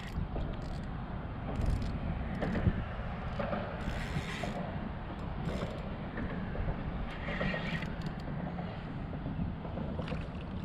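Fishing reel being worked in short spells while a hooked sheepshead is fought on a bent rod, over a steady low rumble.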